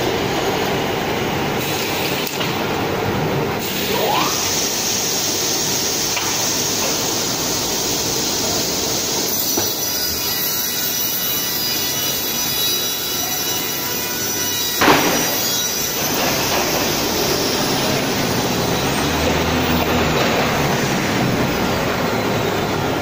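Plywood edge trimming saw running and cutting the edges of a stack of plywood sheets: a steady, loud machine and sawing noise, with high steady tones ringing through the middle stretch and one sharp knock about 15 seconds in.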